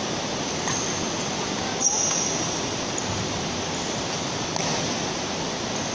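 Badminton rally on an indoor court over a steady rushing background noise: a few sharp clicks of racket striking shuttlecock, and a short high squeak of a shoe on the court floor about two seconds in.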